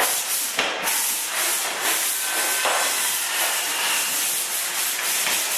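Pole sander with coarse 100-grit sandpaper scraping steadily over dried joint compound on drywall inside corners, a continuous hiss as the lumps and excess mud are ground down.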